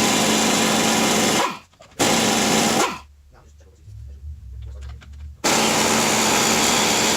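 Power tool running at full speed in three bursts, the longest about two seconds, each starting abruptly and winding down when released.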